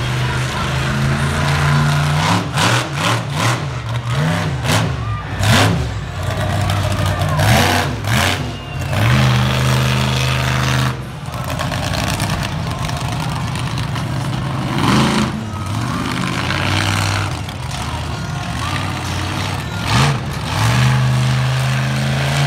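Monster truck engine revving hard in a run of sharp throttle bursts, then held at high revs for longer stretches as the truck drives.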